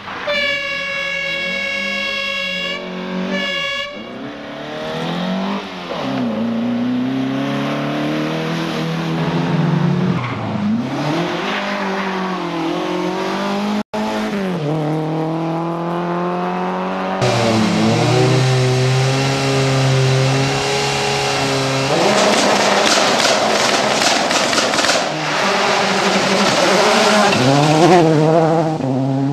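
Racing car engines revving hard, climbing and dropping in pitch over and over as they shift through the gears, with abrupt jumps from one car to another. For about the first three seconds a steady high-pitched tone sounds over the engine.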